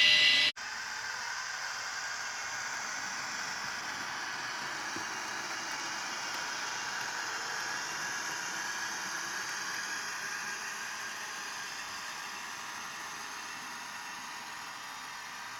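Bemo narrow-gauge model train running through the station: a steady whir and hiss from the locomotive and wagons on the track, easing slightly toward the end. About half a second in, a louder steady tone breaks off abruptly.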